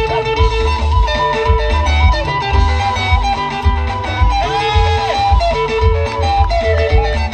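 Live band music with no singing: a wavering lead melody over guitar and a strong, regular bass beat.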